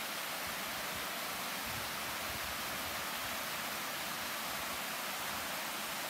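Steady rushing of running water from a nearby mountain stream or small waterfall, an even hiss that does not change.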